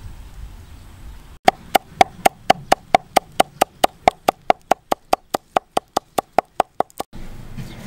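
Knife chopping green onions on a wooden board: a fast, even run of knocks, about five a second, for some five seconds, stopping abruptly near the end. Before it, a second or so of faint bubbling from a clay pot on the boil.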